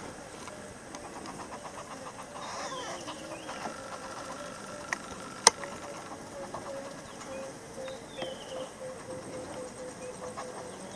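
Southern yellow-billed hornbills calling: a steady run of low clucks, about three a second, from about halfway through. Short, higher falling chirps from other birds come every few seconds, and a single sharp click sounds in the middle.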